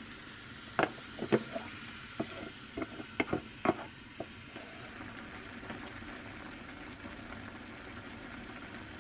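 A wooden spatula knocking and scraping against a plastic container as sauce-coated rice cakes are scraped out into a pot, with about eight sharp knocks in the first four seconds. After that, a steady hiss.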